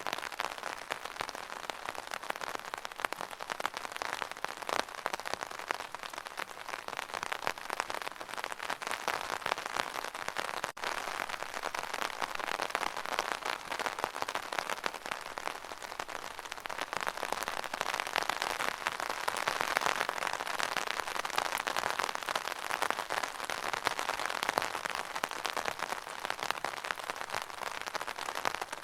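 Steady rain pattering on an umbrella canopy, a dense stream of small drop impacts that swells slightly louder about two-thirds of the way through.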